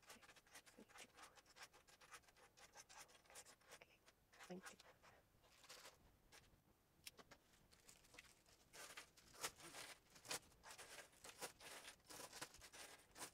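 Faint clinking and scraping of metal swivel clasps being slid across a cutting mat and handled by hand, with the clicks coming thicker from about nine seconds in.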